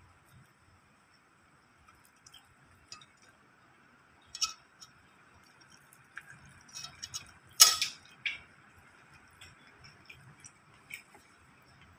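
Scattered light clinks and taps of tableware: a glass plate and a metal fork being touched and set down. The loudest is one sharp clink about two-thirds of the way through.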